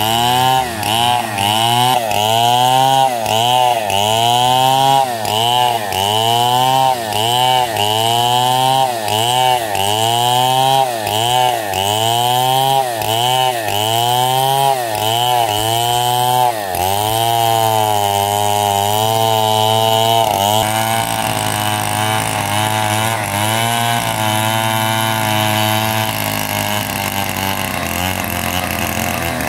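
Stihl two-stroke chainsaw ripping lengthwise along a timber beam, its engine pitch rising and falling about twice a second as the bar is worked through the cut. About halfway through the engine evens out to a steady pitch, and it gets a little quieter near the end.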